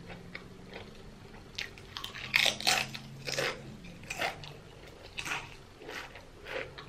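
A person biting and chewing food close to the microphone: a run of short, crisp crunches and chews, loudest in the middle.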